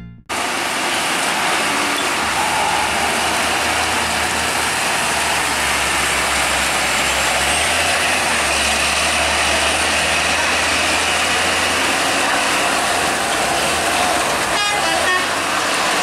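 A heavy cargo truck's engine runs under load as it tries to climb a wet hairpin, over steady traffic noise from the waiting vehicles. Horns toot, and near the end there is a quick run of short beeps.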